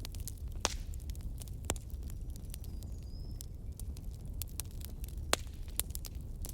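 Bonfire crackling: irregular sharp pops and snaps of burning wood, a few louder than the rest, over a low steady rumble.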